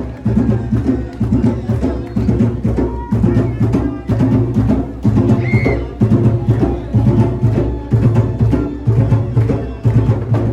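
Music with a steady, strong beat: a pulsing bass line under sharp wood-block-like percussion.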